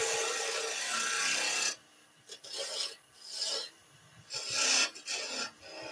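Turning tool cutting a spinning ash spindle on a wood lathe. A steady shaving hiss stops a little under two seconds in, then a run of short, separate cuts follows.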